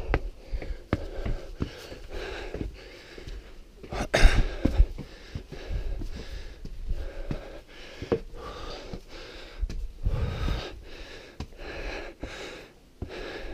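Heavy, wheezy breathing close to the microphone, a string of breaths about a second each, from someone climbing steps out of breath, with low rumbles of wind on the microphone about four seconds in and again near ten seconds.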